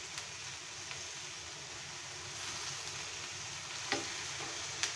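Pechay (bok choy) stir-frying in a nonstick pan, a steady sizzle, with a couple of light knocks near the end.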